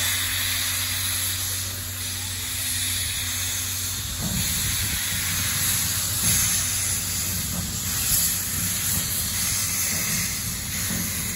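Steam hissing steadily from the open cylinder drain cocks of a JNR Class C11 steam tank locomotive as it creeps forward. A lower rumble joins the hiss about four seconds in.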